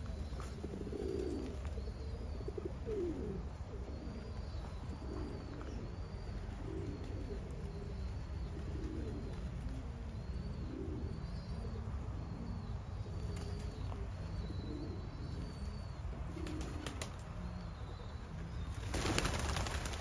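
Doves cooing over and over in low, warbling phrases, with faint high chirping from small birds behind them. A short rush of noise comes near the end.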